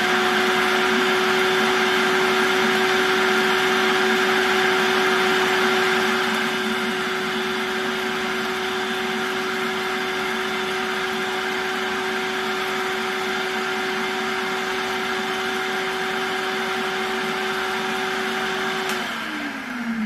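Electric food processor motor running steadily, grinding dried green onion pieces into powder, slightly quieter after about six seconds, then winding down as it is switched off at the very end.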